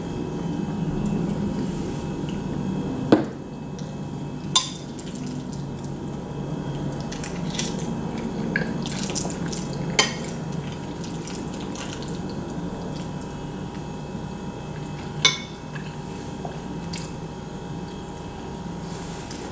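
Close-miked eating sounds: a sip of water through a straw, then wet chewing of mac and cheese, with a few sharp clinks of a metal spoon against the ceramic dish.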